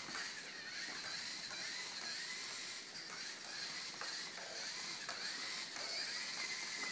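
LEGO Mindstorms NXT line-following robot's servo motors whirring through their plastic gears. The whine rises and falls in pitch as the robot keeps correcting its steering along the line.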